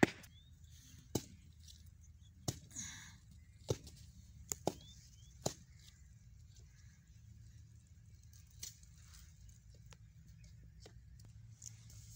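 A small knife tapping on a cutting board as garlic cloves are cut, sharp irregular clicks about once a second, the loudest at the very start, thinning out after about six seconds.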